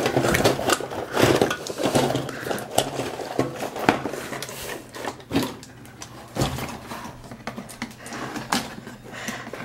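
Hard plastic clacking, knocking and rattling as two hand-worked Iron Man and Hulk battle-toy figures are made to punch each other. Rapid and busy for the first few seconds, then sparser single knocks.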